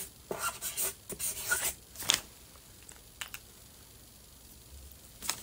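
Marker pen scratching on paper in short drawing strokes, with a sharp click about two seconds in.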